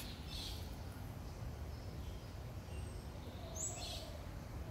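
Outdoor garden ambience: a steady low rumble with faint bird chirps, twice.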